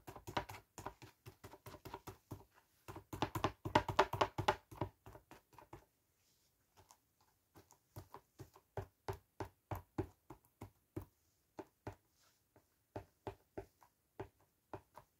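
A paint-soaked sponge dabbed again and again onto a phone case on a table, making quick soft taps. The taps come fast and loud for the first few seconds, then lighter and more spaced out.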